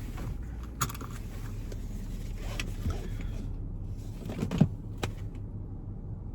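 Car cabin noise while driving: a steady low rumble with a few scattered short clicks and knocks. The higher hiss drops away about five seconds in.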